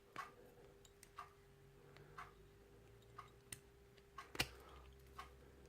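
Faint, sharp metal clicks of a tool working at the circlip on a padlock's removable core, with one sharper click about four seconds in. Under them runs a faint, steady tick about once a second.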